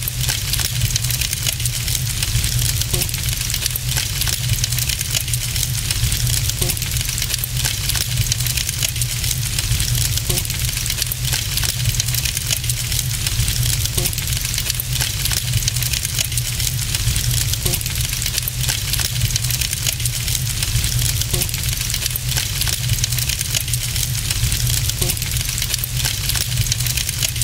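Fire sound effect: a steady low roar of burning with hiss and scattered crackles, unchanging and evenly repeating like a loop.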